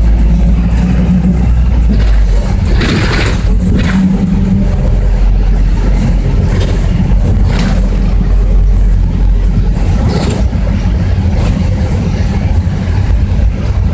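Bogdan A09204 midibus's diesel engine droning under way, heard from inside the passenger cabin along with road noise, the engine note shifting about three seconds in. Several short clatters of the bus body and fittings come through along the way.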